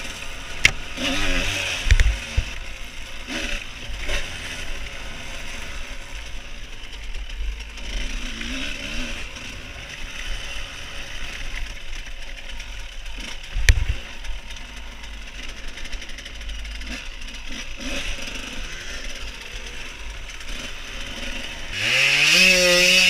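Yamaha YZ125's single-cylinder two-stroke engine running on a dirt trail, its pitch rising and falling with the throttle, with a few sharp knocks along the way. Near the end it revs up louder.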